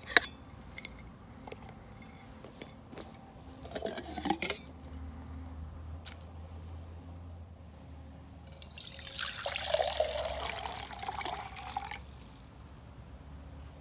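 Water poured from a bottle into a stainless steel Stanley Adventure cook pot for about three seconds, the splashing note rising as the pot fills. Near the start, a sharp metallic click as the pot's lid comes off.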